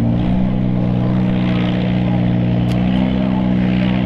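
Farmall Super M's four-cylinder engine pulling hard at a steady pitch as it drags a weight-transfer sled at a slow crawl.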